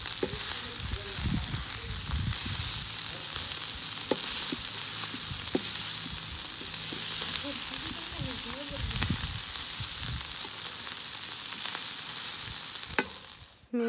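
Taquitos frying in hot oil: a steady sizzle with a few sharp pops, cutting off abruptly just before the end.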